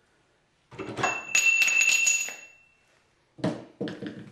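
A metal pipe clanking and ringing: a loud clatter about a second in, with a clear ringing tone that holds for about a second and a half and fades. Two shorter knocks follow near the end.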